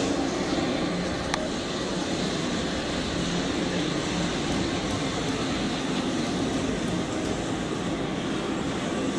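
Steady rushing air noise from a spinning ceiling fan close to the microphone.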